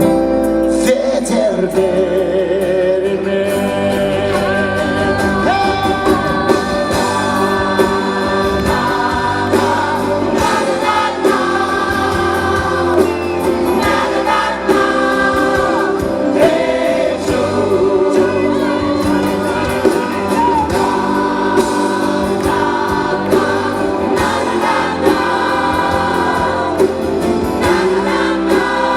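Live band music with several voices singing together, like a choir, over the band.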